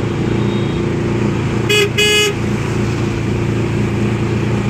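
Steady engine and road noise inside a moving vehicle, with a horn tooting twice in quick succession about two seconds in.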